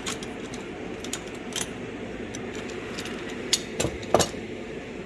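Metal woodworking clamps clinking and rattling as they are handled, with a few sharper knocks near the end, over a steady low hum.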